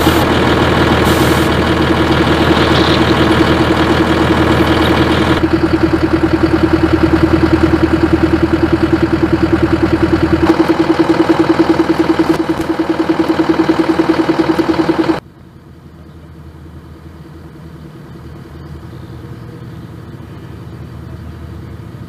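VAMTAC military vehicle's diesel engine idling with an even throb. About two-thirds of the way in, the engine sound cuts off suddenly, leaving a quieter steady outdoor hiss.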